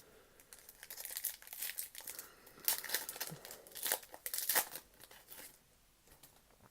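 A trading-card pack's wrapper crinkling and tearing as it is opened by hand, a run of crackly rustles lasting about five seconds.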